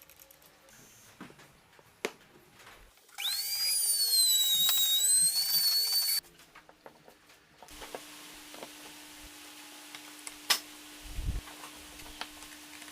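A small electric power tool, such as a drill, spins up with a rising whine, runs steadily for about three seconds and stops abruptly. Scattered clicks and knocks follow, including one sharp knock, over a faint steady hum.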